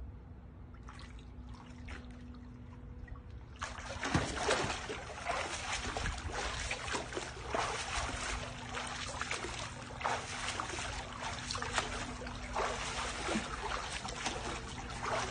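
Water splashing and sloshing from a swimmer's arm strokes and kicks in a pool. The splashing starts about four seconds in and goes on unevenly after that.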